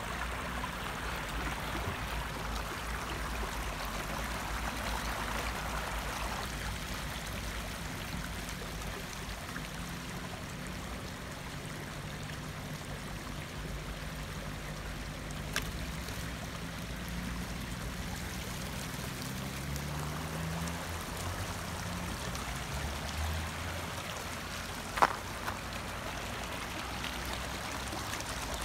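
Shallow spring-fed stream running and trickling steadily over rocks. A faint low hum rises in pitch about two-thirds of the way through, and a single sharp click stands out near the end.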